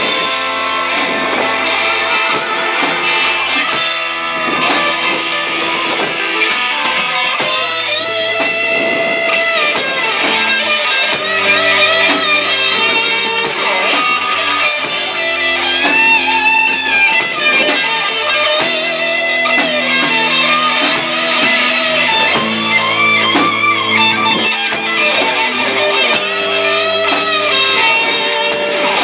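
Live rock band playing an instrumental break: an electric guitar lead with bending notes over bass guitar and drum kit, the cymbals keeping a steady beat.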